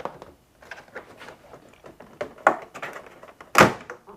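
Plastic trunk side panel of a Honda Gold Wing being worked free by hand: a run of small clicks and creaks from its clips and plastic bosses, with one loud sharp pop about three and a half seconds in.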